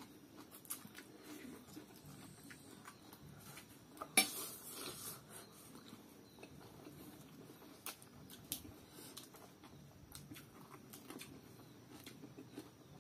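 Quiet eating sounds: instant noodles being slurped and chewed, with scattered light clicks of chopsticks and cutlery against a plate. One sharper click comes about four seconds in.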